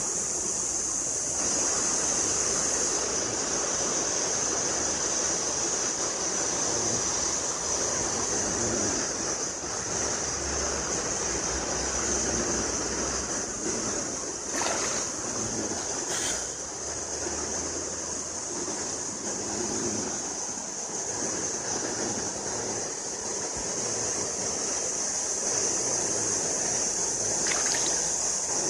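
Mountain stream water rushing steadily, with a constant high hiss.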